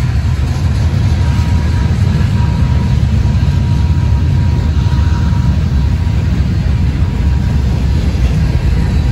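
Freight train cars rolling past close by: a steady, loud rumble of steel wheels on rails, with a faint high steady tone over it for the first few seconds.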